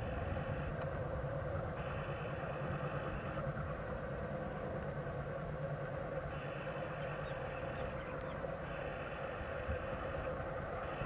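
Two ALCo WDM-3A diesel locomotives, each with a 16-cylinder ALCo 251 engine, working an express train, heard as a steady engine drone. A higher buzzing hum comes and goes a few times over it.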